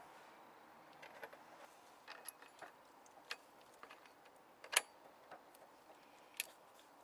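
Scattered light clicks and clinks of small hard objects being handled, irregular, with one sharper click about five seconds in.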